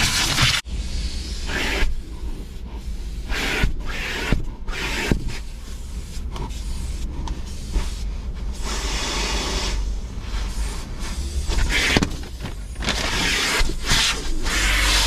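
Vacuum cleaner running, its ribbed hose and plastic nozzle sucking at floor carpet; the rushing suction swells and drops as the nozzle is pressed down and lifted, over a steady motor hum, with occasional knocks of the plastic tool. The sound cuts out briefly under a second in.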